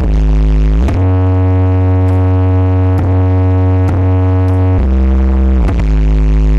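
Loud electronic dance music played through a parade sound system with eight subwoofers. A heavy synth bass line slides down between notes about a second in and again near the end.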